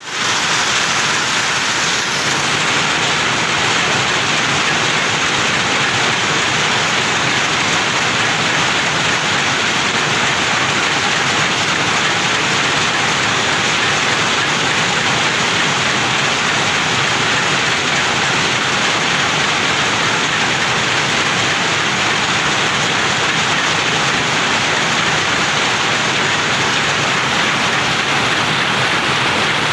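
Weaving looms running in a mill shed: a loud, steady, dense rush of machine noise with no distinct beat.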